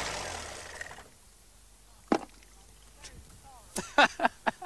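A car engine, just switched off, runs down and falls quiet within the first second. Then come a single sharp click about two seconds in and a quick run of four or five sharp clicks or knocks near the end.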